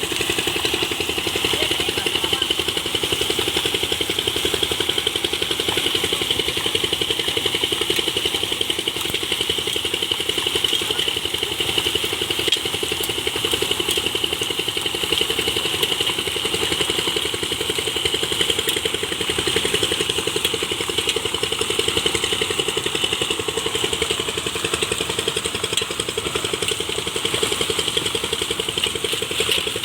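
An engine running steadily at a constant speed, with a fast, even chugging pulse and no change in pitch.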